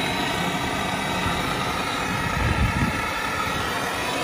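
Steady mechanical running noise, a constant hum with several held tones over a low rumble, from a running machine.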